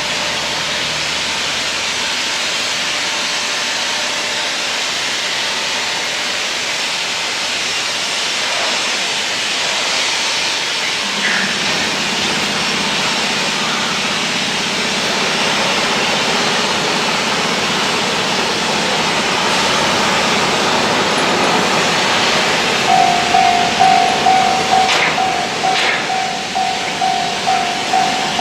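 Steady rushing background noise, joined about eleven seconds in by a low steady engine drone. About twenty-three seconds in, a Japanese level-crossing warning bell starts ringing: an even, repeating electronic clang at about one and a half strikes a second.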